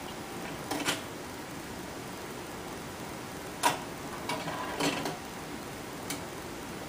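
Aquarium bubble wall hissing steadily as streams of air bubbles rise through the water, with about five short clinks over it, the loudest a little past the middle.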